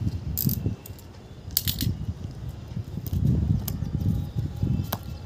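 A cardboard box being pulled open by hand: a few sharp crackles and scrapes of cardboard flaps, and a single sharp click near the end. Wind rumbles unevenly on the microphone throughout.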